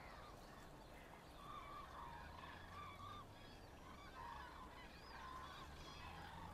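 Faint chorus of waterfowl calling, whooper swans and greylag geese, many short overlapping honks throughout, over a faint steady low hum.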